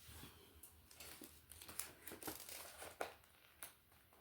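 Faint rustling of paper pages with light ticks, as a book is handled and its pages turned and held open; the sounds stop about three and a half seconds in.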